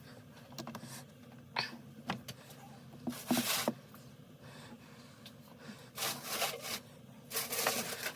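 Tools and parts being handled on a workbench during a chainsaw teardown: a few light clicks, then several short scraping, rustling bursts, over a steady low hum.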